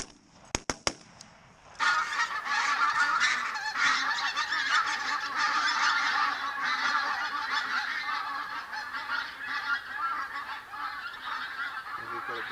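A few faint clicks, then about two seconds in a large flock of pink-footed geese starts calling: a dense, continuous chorus of honking that carries on without a break.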